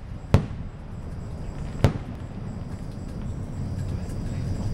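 Aerial fireworks shells exploding: two sharp bangs about a second and a half apart, the first trailed by an echo, over a steady low background rumble.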